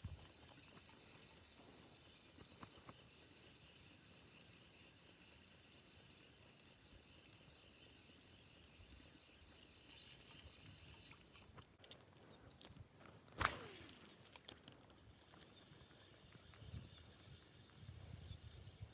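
Faint, steady high-pitched insect chorus. A few sharp clicks and one louder knock come about two-thirds of the way through, and the insect sound grows stronger near the end.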